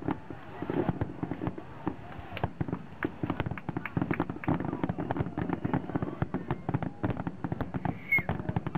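Fireworks going off in a dense, irregular string of sharp pops and crackles, several a second.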